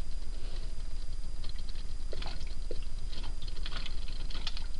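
Homemade pop-pop flash steam water-jet engine running steadily in an aluminium tray of water: a fast, even ticking rattle, with sharper clicks coming more often in the second half.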